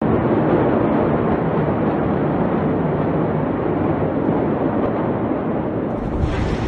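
A steady, loud rushing noise; about six seconds in, the shock wave of the Beirut port explosion arrives as a sudden blast followed by a deep rumble.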